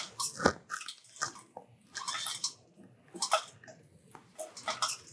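Irregular clicks, scrapes and rustles of hands working a drill press and its magnetic-base dial indicator setup, with one sharper knock about half a second in.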